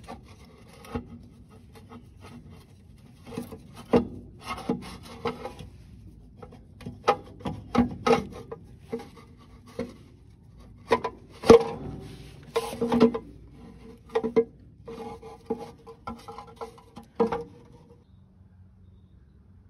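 Oil pan of an International C153 engine being held up and fitted to the block by hand: irregular knocks, clanks and rubbing scrapes of metal on metal, some clanks ringing briefly. The handling stops a couple of seconds before the end.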